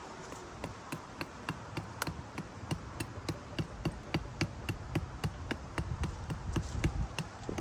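Hatchet blade striking a wooden stick in quick, even chops, about three to four a second, cutting a point onto its end.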